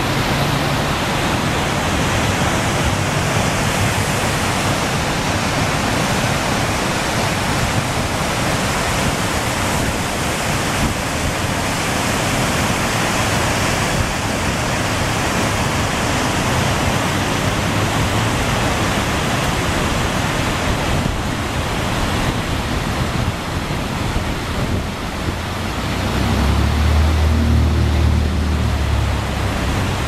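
Waterfall in high flow: a steady, loud rush of water pouring over the falls and churning below, with a low rumble swelling a few seconds before the end.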